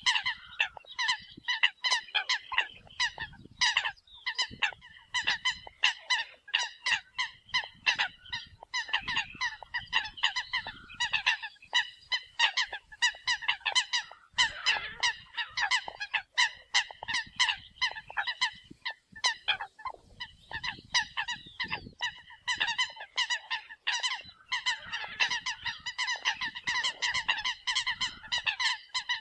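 Eurasian coots calling: a dense, unbroken run of short, sharp calls, several a second and often overlapping.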